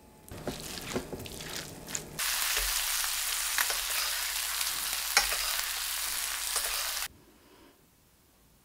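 Sea bass fillets frying in a pan with butter and oil: a loud, steady sizzle with scattered pops and spits. It starts abruptly about two seconds in and cuts off suddenly about five seconds later. Before it, a lemon half is pressed in a hand squeezer, giving softer squishing and small clicks.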